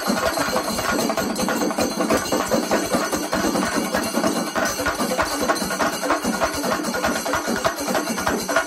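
Singari melam: a large ensemble of chenda drums beaten fast and continuously with sticks, with ilathalam hand cymbals clashing along in a dense, driving rhythm.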